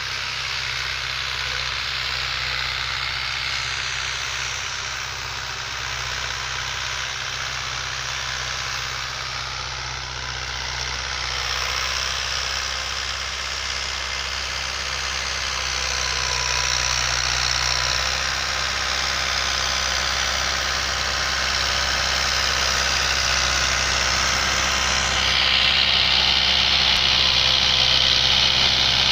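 Fiat 640 tractor's diesel engine running steadily while it pulls a cultivator through the soil, with a steady hiss over it. It grows louder as the tractor approaches, with a clear rise near the end.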